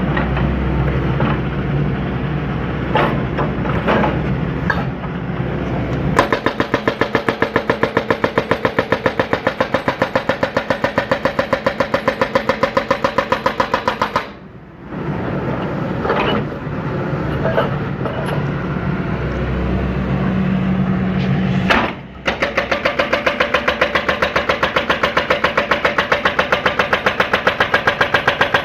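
John Deere 160C excavator's diesel engine working, with a fast, even pulsing through long stretches. The sound drops away briefly twice, about halfway and again about three quarters of the way through.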